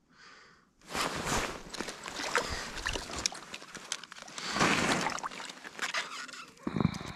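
Water splashing and sloshing in an ice-fishing hole as a hooked bluegill is pulled up through it, with scattered clicks of slush and ice. It starts about a second in and is loudest near the middle.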